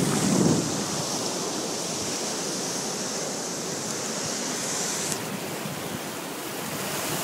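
Shallow ocean surf washing over the sand and around a stranded carcass: a steady hiss of moving seawater. A higher fizzing part of the hiss cuts off about five seconds in.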